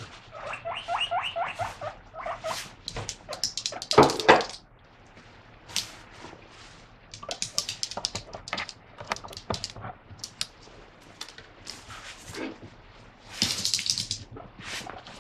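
Guinea pig wheeking, the excited 'pui pui' begging calls it makes when it hears lettuce being washed for it. A quick run of repeated calls comes first, with louder calls about four seconds in and near the end, and shorter calls between them.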